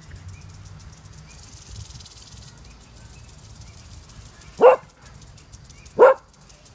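Cocker spaniel barking twice, about a second and a half apart, both barks loud and short.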